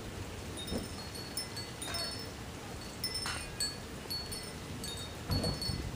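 Light, high-pitched chime notes tinkling irregularly, several a second, over a low uneven rumble.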